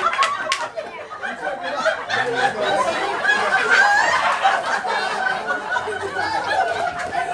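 A roomful of people chattering and laughing over one another, with a few sharp taps near the start.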